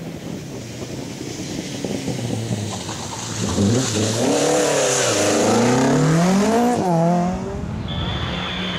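Rally car engine revving hard as it passes, its pitch climbing and dropping several times with throttle and gear changes, loudest in the middle, over a hiss of tyres on the wet stage. A short steady high whistle sounds near the end.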